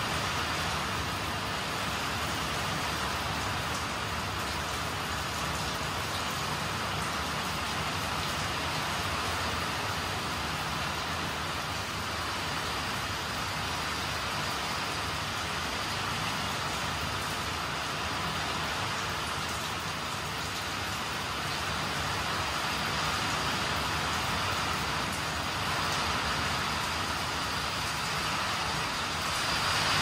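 Heavy rain falling with wind, a steady hiss that grows a little louder near the end.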